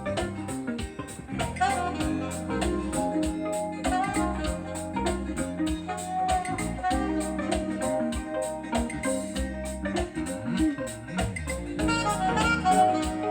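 Instrumental music with a steady beat, played from a vinyl record on a Thorens TD 165 turntable through loudspeakers; the owner says the deck is really sounding good now.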